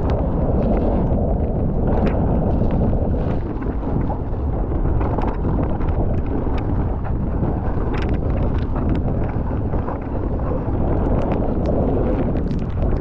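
Wind rumbling across the camera microphone during a fast mountain-bike descent, with scattered clicks and rattles from the bike over the rough trail.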